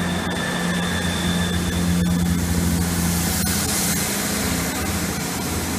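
Class 158 diesel multiple unit's underfloor diesel engines running loudly and steadily, with a thin high whine in the first second or so and a hissing swell around the middle.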